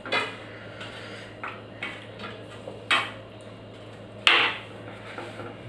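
Stainless steel plate and bowl clinking and knocking as food is handled on them, a few short knocks spread out with the loudest about four seconds in. A low steady hum runs underneath.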